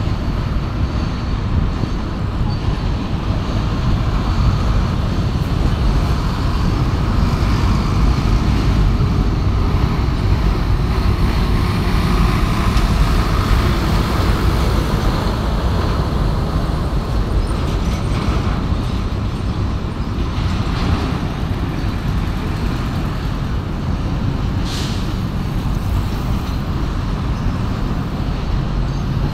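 Heavy road traffic passing close by: a diesel truck hauling a flatbed trailer of steel beams rolls past, its engine and tyres making a loud, steady low rumble.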